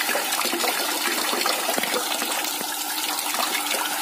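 Tap water running steadily into a large aluminium basin of water, splashing over hands that rinse a length of softshell turtle intestine under the stream.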